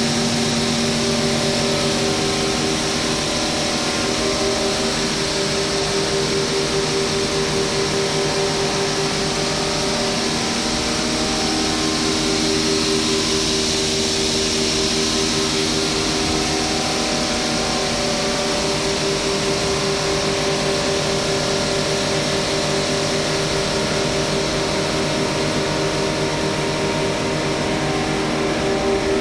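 Wheat flour (atta) mill plant machinery running steadily: electric motors, elevators and fans giving a constant hum with a clear mid-pitched tone over an airy hiss.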